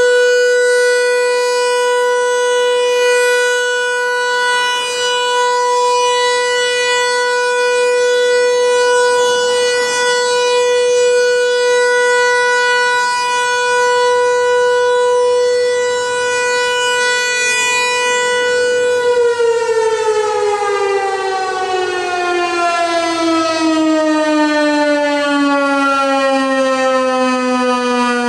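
ASC T-128 outdoor warning siren sounding a steady Alert tone, then, about 19 seconds in, winding down with the pitch falling steadily as the end of the alert signal.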